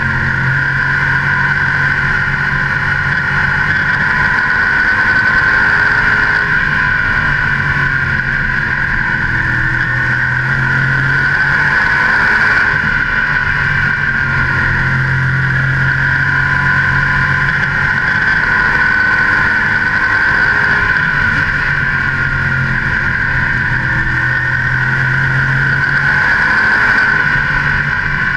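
Modified stock car's carbureted V8 racing engine, heard on board, running hard at racing speed. Its note rises and falls as the car laps the oval.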